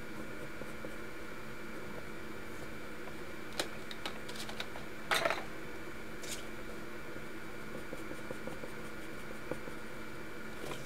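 Red Tombow coloured pencil shading on paper, with faint scratching over a steady hum. A few light clicks come around the middle, the loudest a brief scrape-and-knock of hand or pencil against the paper about five seconds in.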